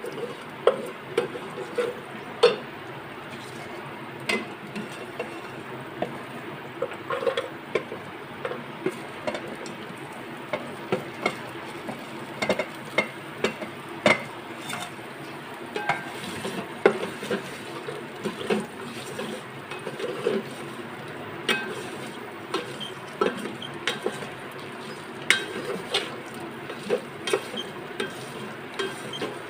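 Wooden spatula stirring and scraping in the metal inner pot of an electric rice cooker, with irregular knocks against the pot, over light sizzling of okra and spices frying in oil.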